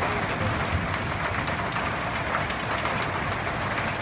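Heavy rain pouring steadily onto a rooftop: a dense, even hiss of drops with no let-up.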